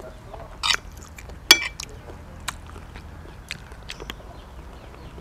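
A metal spoon scraping and clinking on a china plate during a meal, with one sharp ringing clink about a second and a half in and a few lighter taps after it. Soft chewing sounds lie between the clinks.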